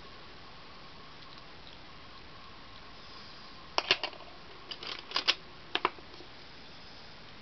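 A quick run of sharp clicks and taps about halfway through, lasting some two seconds, over a faint steady hiss with a thin high hum.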